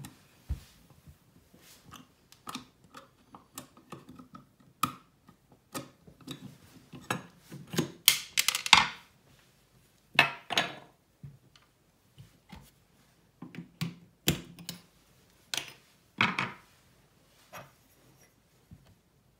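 Clicks and clatters of an Oras mixer tap being taken apart: a screwdriver on the lever, and the chrome handle, cap and other small parts knocking against the tap and being set down on the ceramic basin. The knocks come irregularly, loudest about eight to nine seconds in.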